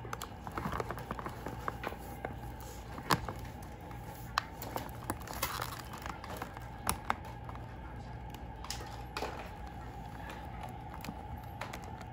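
Scattered small clicks and rustles of cardboard and plastic packaging being handled as a doll is worked loose from its box, over a faint steady hum.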